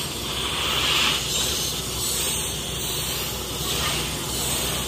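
Servo-driven CNC digital cutting machine running while it cuts PVC sheet: a steady rushing, machine-like noise that swells and eases about every second as the cutting head moves.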